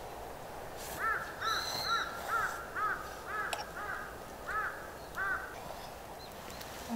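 A bird calling: a series of about eight short, arching calls, roughly two a second, over a faint steady background hiss, with a brief higher whistled note about a second and a half in.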